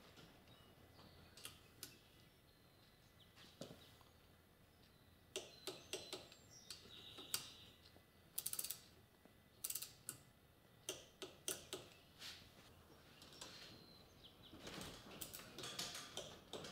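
Ratcheting torque wrench clicking in short, scattered runs as it tightens the cam journal cap bolts on the first pass to 60 inch-pounds.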